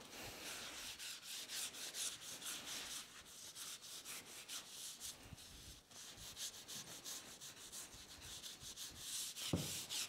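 Faint cloth rag rubbing boiled linseed oil into a birch plywood board, a run of quick back-and-forth wiping strokes.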